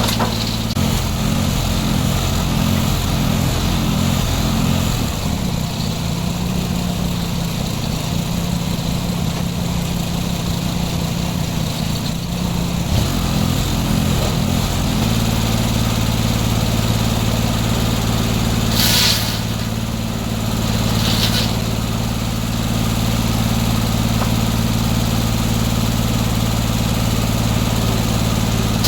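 Gas engine powering a circular sawmill, running steadily. Its pitch wavers through the first half, then settles. Two short hissy bursts come near the two-thirds mark.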